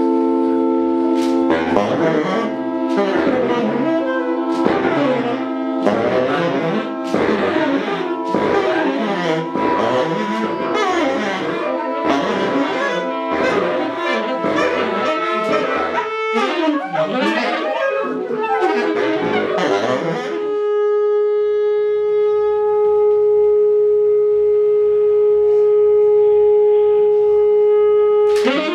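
Wind-like instrument tones from a sound installation, set off by coloured squares lifted in a hair dryer's airstream: a held chord, then a dense run of short overlapping notes at about one or two a second, then one long steady note that cuts off sharply at the end.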